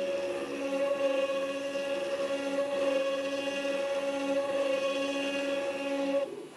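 Small 4-axis CNC router engraving an aluminium cylinder: a steady spindle whine with stepper-motor tones that switch pitch every half second or so as the axes move. The sound cuts out sharply near the end.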